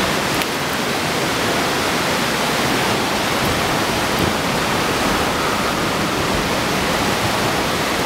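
Creek water rushing steadily over a shallow rocky riffle.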